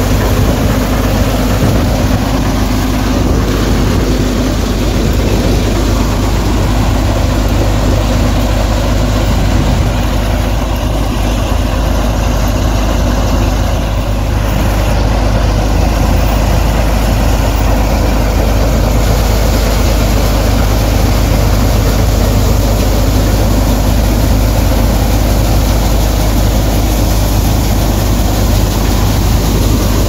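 Punni combine harvester's diesel engine running steadily under load while the machine cuts standing wheat.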